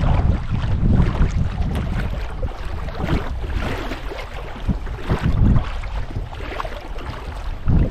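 Wind buffeting the microphone in gusts, over water lapping and splashing around a canoe.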